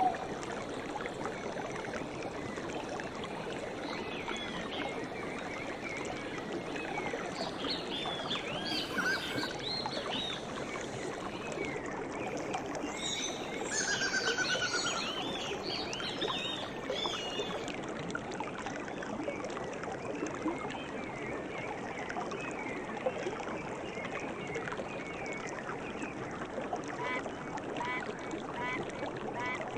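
Nature soundscape of steady flowing water with birds chirping over it. The chirps cluster about eight and fourteen seconds in, and near the end a short call repeats about once a second.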